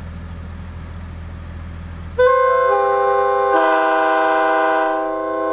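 Nathan K5LA five-chime locomotive air horn with wide-font hybrid bells, blown as one long blast starting about two seconds in. Its bells sound in one after another until the full chord is held, dipping slightly near the end. A steady low hum comes before it.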